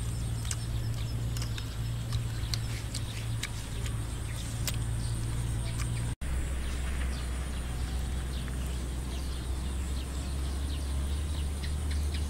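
Rural outdoor ambience: a steady low rumble under a steady high buzz, with scattered short chirps and clicks of birds. The sound cuts out for an instant about six seconds in, and the rumble comes back lower.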